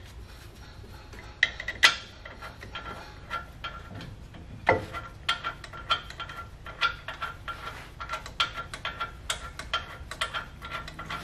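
Metal clicking at the front brake caliper as its mounting bolts are worked in with a hand tool: a few scattered knocks, then quick regular clicks about two or three a second with a faint metallic ring.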